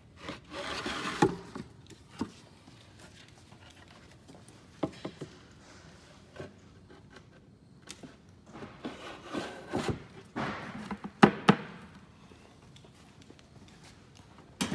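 Wooden cabinet panels being handled and slid into glued dados: scraping of wood on wood in two stretches, with several sharp knocks of wood against wood, the loudest near the end.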